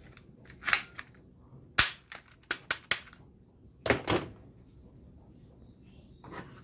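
Hard plastic toy guns clicking and knocking as they are handled: a run of sharp single clicks in the first three seconds, a louder clatter about four seconds in, and one more knock near the end.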